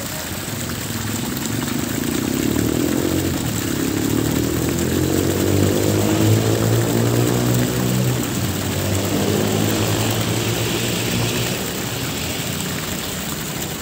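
A propeller aircraft passing overhead: a low engine drone that grows louder toward the middle and then fades away again.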